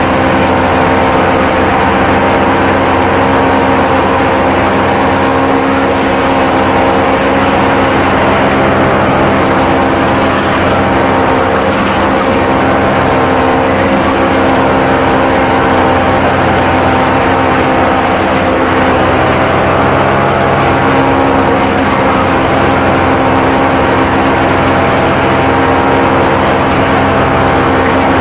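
Paramotor engine and propeller running steadily at cruising power in flight, a loud even drone.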